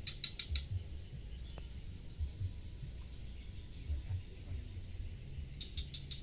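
Steady high-pitched drone of insects such as crickets along a jungle stream. Two short runs of four quick chirps come at the start and again near the end, over dull low thumps.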